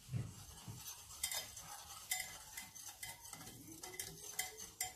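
Wire whisk stirring flour and other dry ingredients in a glass bowl: a soft scraping hiss with irregular sharp clicks of the wires against the glass.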